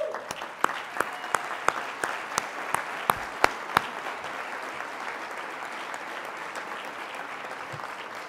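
Audience applauding, with one person's loud claps close to the microphone about three times a second for the first four seconds.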